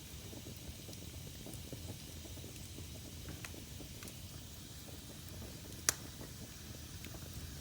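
Wood fire burning in a fireplace: a low steady rush with scattered small crackles, and one sharp pop about six seconds in.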